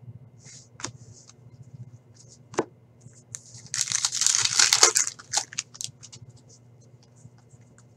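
A foil trading-card pack torn open by hand, its wrapper crinkling loudly for about a second midway. A couple of sharp clicks come before it, and a few light clicks and rustles after it.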